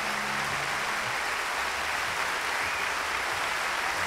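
Audience applause, a dense, even clatter of clapping, with the last held chord of a song dying away under it about a second in.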